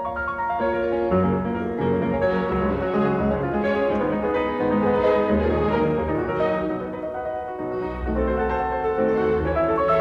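Background instrumental music led by piano, in a classical style.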